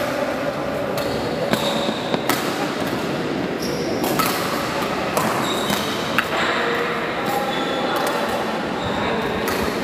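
Badminton rally: rackets striking the shuttlecock in sharp, irregularly spaced hits, with short high squeaks of shoes on the court mat over a steady murmur of the large hall.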